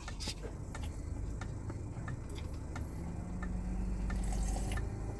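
Close-up eating sounds: a slurp of ramen noodles, then chewing with many small wet mouth clicks. Near the end comes a sip of broth straight from a paper cup.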